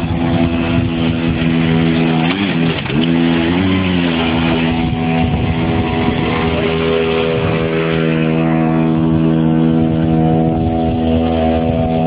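Small engine of a motorized construction wheelbarrow running at a steady speed, its pitch dipping briefly and recovering twice a few seconds in.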